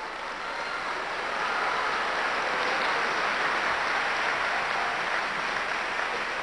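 Large crowd applauding, the clapping swelling over the first couple of seconds and then holding before easing slightly near the end.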